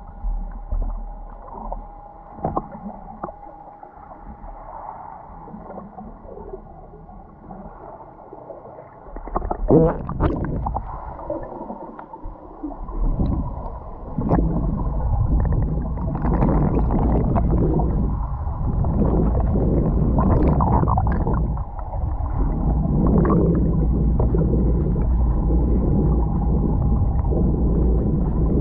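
Muffled water rushing and gurgling around a GoPro in its waterproof housing as it is towed underwater, with scattered knocks. It is quieter and uneven at first, then grows louder and steadier about halfway through.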